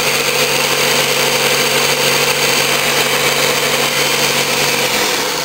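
Ninja Kitchen System 1200 blender's motor running at full speed, its stacked blades spinning with a steady whirring hum while the frozen fruit is thrown against the jar walls instead of blending. The low hum drops away about five seconds in as the motor winds down.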